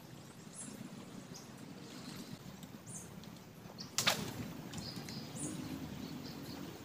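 Faint outdoor background with a low rumble and scattered short high chirps; about four seconds in, one sudden sharp sound whose pitch falls fast from very high to low.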